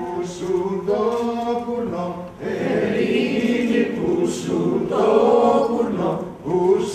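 Several voices singing together without instruments, in long held notes, with short breaks about two and a half seconds in and again near the end.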